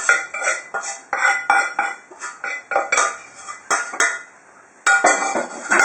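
A metal utensil clattering and scraping in a cooking pan, with a quick run of knocks and clinks. It eases off for a moment, then comes a louder clatter near the end.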